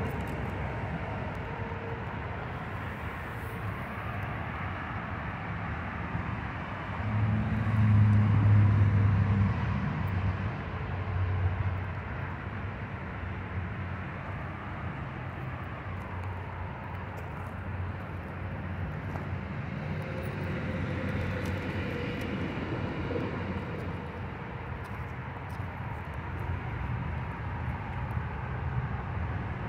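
Steady distant engine rumble in open air, swelling louder about seven to ten seconds in, then settling back.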